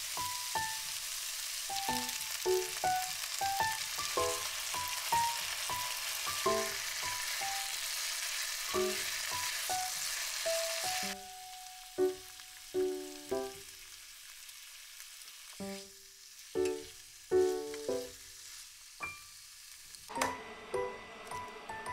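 Eggplant and green pepper strips sizzling as they stir-fry in a pan, cooking off their moisture. The sizzle drops away sharply about halfway through, leaving light background music of short plucked notes.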